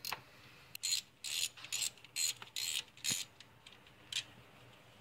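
Hand socket ratchet with a 12 mm socket clicking as a bolt is loosened, in about six short back-and-forth strokes, ending about three seconds in, with one faint click near the end.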